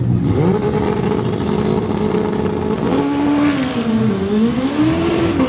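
Sprint motorcycle engine revving while it stands on the start line. The pitch jumps up quickly, holds a steady high note for a couple of seconds, then sags and climbs again.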